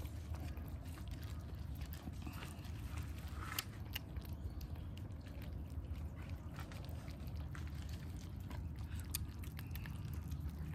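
Cats eating wet food from a plate, scattered wet chewing and licking clicks over a steady low background hum.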